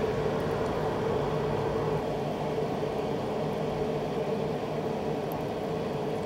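Steady electric hum of a kitchen appliance running, a low drone with a higher whine over a faint hiss.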